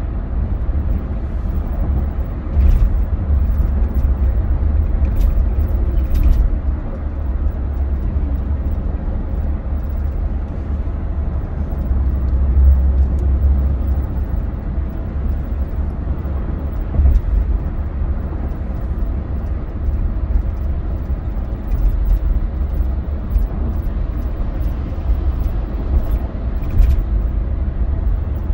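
Car driving on the road, heard from inside the cabin: a steady low rumble of road and engine noise, with a few faint ticks.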